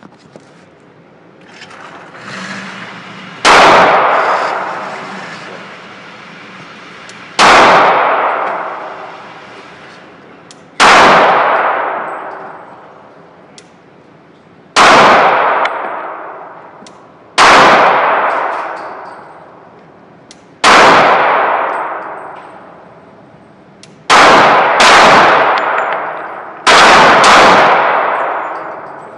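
About ten gunshots in an indoor shooting range, each a sharp crack followed by a long echoing decay off the concrete. They come every three to four seconds, with two quicker pairs near the end.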